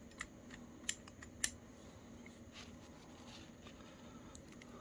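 A few light metallic clicks and taps, the sharpest about a second and a half in, from the brake cable's end fitting and the brake arm of a Sturmey-Archer S3B drum-brake hub being handled.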